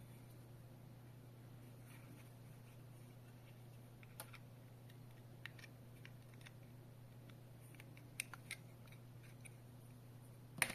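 A few faint plastic clicks and taps as a small plastic wireless alarm sensor is handled and poked with a thin stick, with a sharper snap near the end, over a faint steady low hum.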